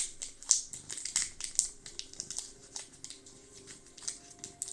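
Crinkling and rustling of plastic or foil wrapping as Pokémon trading cards and their packaging are handled. The quick, irregular crackles come thick at first and then thin out.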